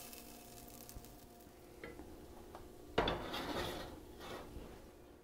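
Sautéed mushrooms tipped from a stainless skillet into a glass bowl. A faint sizzle dies away and there are a few light taps. About three seconds in comes a louder scrape and clatter of the mushrooms sliding and the pan rim knocking against the glass, lasting about a second and a half.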